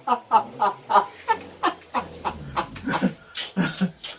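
A person laughing hard in quick breathy pulses, about four a second, dying down near the end.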